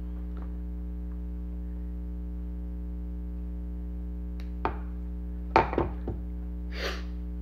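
Steady electrical mains hum, with a few small clicks and knocks from handling tools and parts at a workbench in the second half, the loudest cluster about five and a half seconds in, and a short brushing hiss just after.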